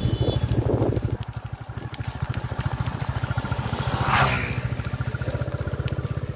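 Motorcycle engine running steadily, getting louder as the bike passes close by about four seconds in, with a short rush of noise at the pass.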